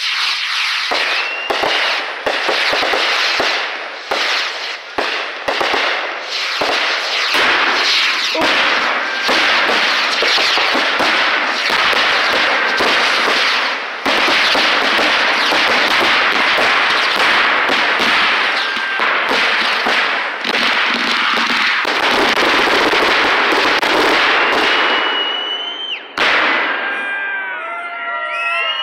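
Fireworks barrage: many rapid pops and bangs from rockets and aerial shells run together into a continuous crackle. Near the end a whistling tone rises and cuts off, and the barrage thins out.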